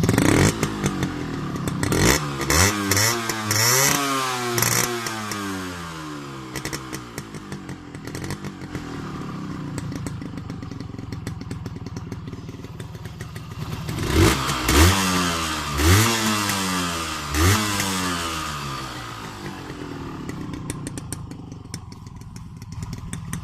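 Honda H100S two-stroke single-cylinder engine idling and being revved in quick throttle blips: about four sharp rises and falls in pitch a couple of seconds in, and four more about two-thirds through, each dropping back to idle. It is running on the CDI ignition unit being tested.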